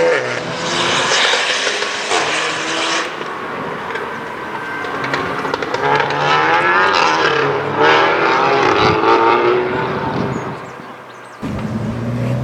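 Tuned Seat Leon ST Cupra's turbocharged 2.0-litre four-cylinder with a custom exhaust accelerating hard, its note climbing in pitch through two gears before fading away. Near the end it cuts abruptly to a steadier, lower engine note.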